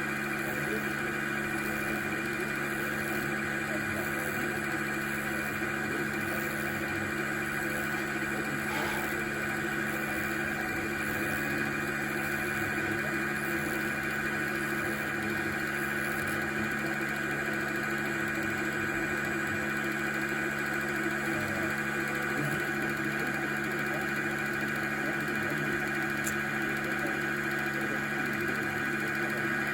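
Emco Unimat PC CNC machine running, its motors giving a steady hum with a constant high whine.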